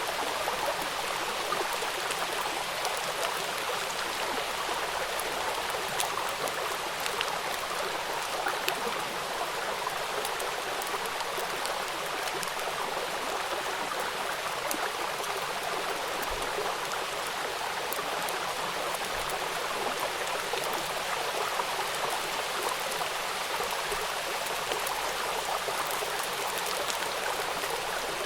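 Rain falling on a river: a steady, even hiss of water, dotted with many small drop ticks.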